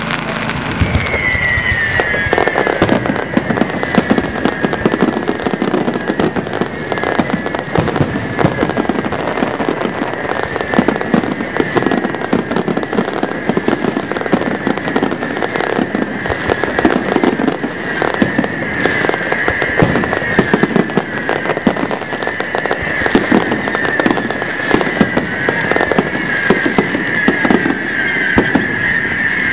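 Aerial fireworks display: a dense run of bangs and crackling throughout, with a continuous high whistling from about a second in, made of many overlapping falling whistles.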